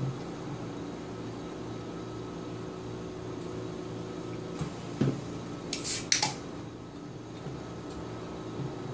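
Steady hum of a fan in a small room. About five seconds in there is a single knock, followed by two short, sharp, hissy crackles as a can of coffee is handled.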